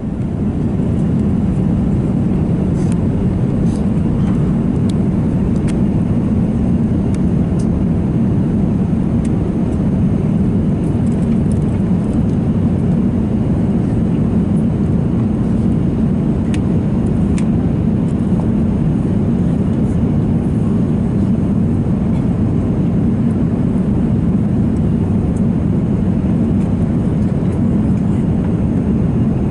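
Steady cabin noise inside an Airbus A330 airliner on approach: a constant low rumble of the engines and the airflow along the fuselage, with a few faint ticks.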